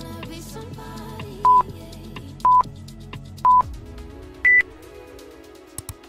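Workout interval timer counting down: three short beeps a second apart, then one higher-pitched beep marking the start of the work interval, over background music.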